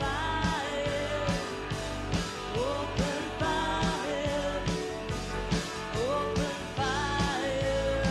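Country-rock song playing: a steady drum beat under a melody of gliding, held notes, possibly sung or played on guitar.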